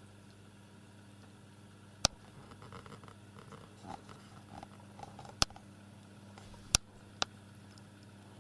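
A steady low hum with four sharp clicks: one about two seconds in, one about five and a half seconds in, and two close together near seven seconds. The clicks are handling noise from the camera being moved.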